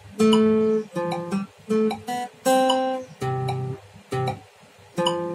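Steel-string acoustic guitar playing chords and single notes, each picked or strummed sharply and left to ring briefly, with short pauses between.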